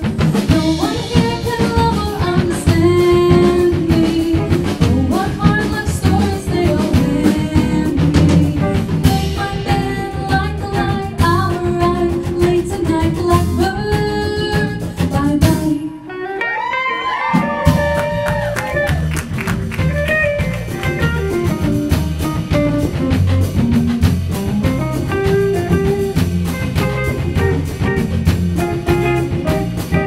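Female vocalist singing with a live band of electric guitar, electric bass, drum kit and congas, playing a samba in 7. About sixteen seconds in, the band stops briefly and the voice sings alone, then the band comes back in.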